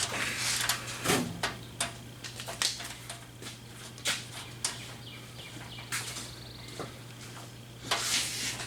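Scattered clicks, taps and light clanks of sheet metal and hand tools being handled while a custom fan shroud is fitted, over a steady low hum.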